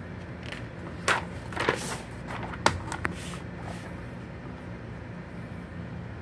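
Glossy magazine page turned by hand: a few quick paper rustles and swishes, then a sharp snap as the page flips over, over a steady low background hum.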